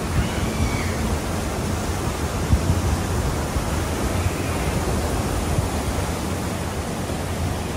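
Steady rush of water churned up around a lake steamboat as it comes alongside a landing, with wind buffeting the microphone in a heavy low rumble.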